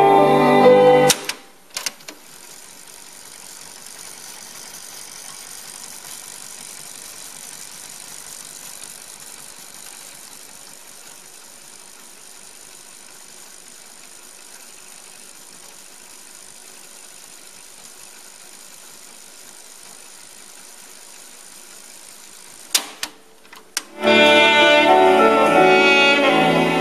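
Pioneer CT-F500 cassette deck playing back a music cassette. One piece of music ends about a second in, with a couple of clicks. About twenty seconds of steady tape hiss follow in the blank gap between tracks, then a couple more clicks, and the next piece of music starts near the end.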